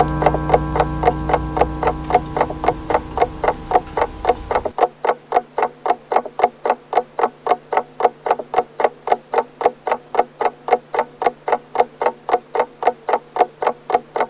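Pendulum clock ticking quickly and evenly, about three to four ticks a second. The low ring of its gong hangs under the ticks and cuts off abruptly about five seconds in.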